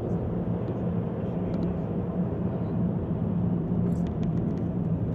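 Car driving in city traffic, heard from inside the cabin: a steady low engine and road drone.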